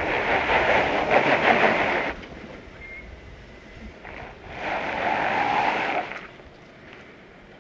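Stock Jeep Wrangler JK Rubicon crawling up a granite slab, with loud grinding and scraping against the rock until about two seconds in, then again for about a second and a half from around four and a half seconds in.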